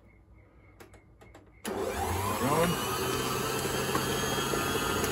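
A few faint clicks, then about a second and a half in a stand mixer's motor switches on abruptly and runs steadily, beating an egg into cheesecake batter in a stainless steel bowl.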